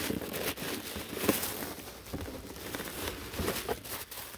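Plastic wrapping crinkling and crackling as it is pulled off a boxed diecast car, with many small crackles one after another.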